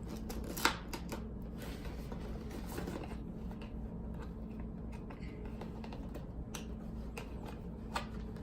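Toy packaging being handled and picked at while opening: scattered small crackles and clicks, with a sharper click about half a second in and another near the end.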